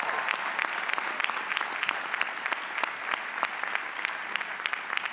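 Large audience applauding: dense, steady clapping that thins a little toward the end.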